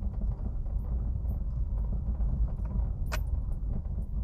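A vehicle rolling slowly over a gravel dirt road: a steady low rumble of engine and tyres with faint crunching ticks from the stones, and one sharp click a little after three seconds in.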